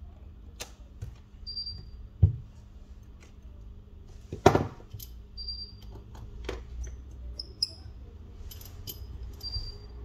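Light clicks and taps of small hand tools and phone parts being handled during a phone repair, with a sharp knock about two seconds in and a louder clack about four and a half seconds in. A few short high squeaks come and go over a steady low hum.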